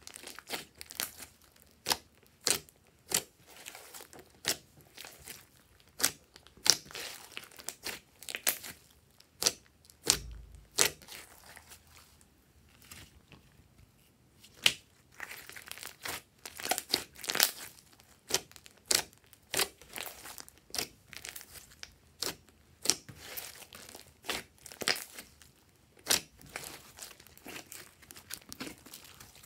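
Glossy slime being squeezed, folded and stretched by hand, giving sharp, irregular popping clicks as trapped air bursts, about one or two a second, with quicker runs of pops about halfway through and again later.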